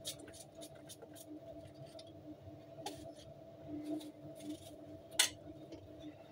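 Kitchen knife cutting an apple held in the hand into small pieces: short crisp clicks, with one louder sharp click about five seconds in. A steady low hum runs underneath.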